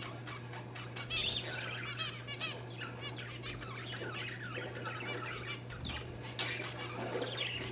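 Parakeets and zebra finches chirping together: a dense run of short, overlapping chirps and calls, over a steady low hum.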